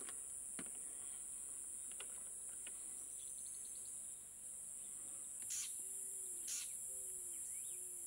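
A steady, shrill drone of insects in the trees, with a few sharp bird chirps over it, the two loudest about five and a half and six and a half seconds in, and some short low falling calls near the end.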